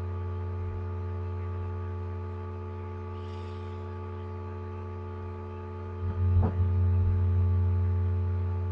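Steady electrical hum in the recording, made of several even tones with the strongest one low. It swells louder about six seconds in, with a soft click.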